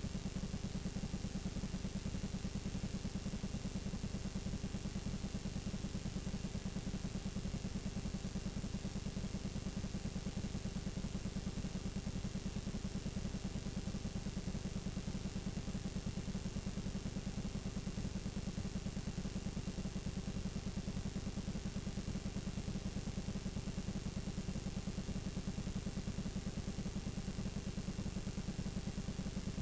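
Steady low buzz and hiss of a blank stretch of videotape playing back as static, with a faint constant high whine; it does not change at any point.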